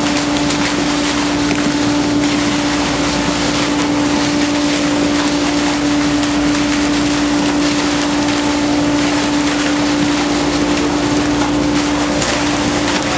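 VSB2000 fish pump running steadily as it pumps sea bass: a constant machine hum over a rush of water and fish pouring out of the outlet onto the chute.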